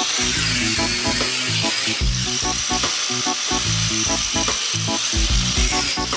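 Handheld angle grinder with a diamond blade cutting through herringbone mosaic tile: a high steady motor whine and gritty cutting hiss, the whine sagging in pitch as the blade bites and recovering, with background music with a steady beat underneath.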